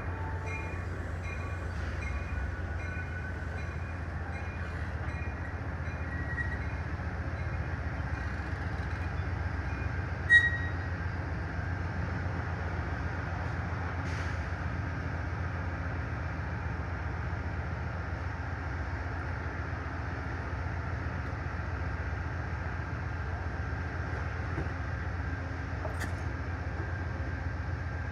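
Amtrak train's General Electric P42DC diesel locomotive running, a steady low drone, with one sharp click about ten seconds in.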